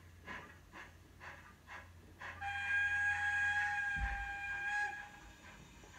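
Model steam locomotive's DCC sound decoder: slow, even chuffing for about two seconds, then a steam whistle blown as one steady tone for about two and a half seconds.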